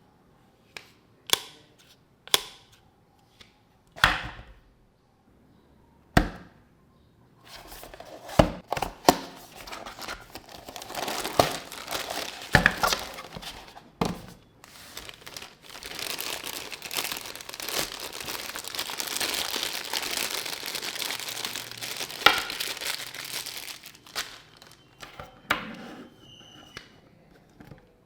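Unboxing sounds: a few separate knocks and clicks, then a long stretch of wrapping being crinkled and torn open, with scattered clicks, then a few knocks near the end.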